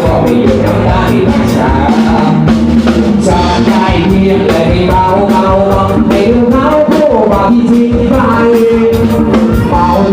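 Mor lam music: a singer's voice over a band with a steady drum beat.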